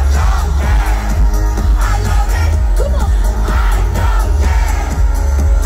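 Live pop music through a festival PA, with a heavy bass beat and a singing voice gliding over it.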